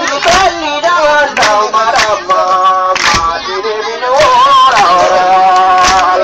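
A man singing loudly through a handheld megaphone, with long held, wavering notes. Irregular sharp percussive strikes cut through the singing.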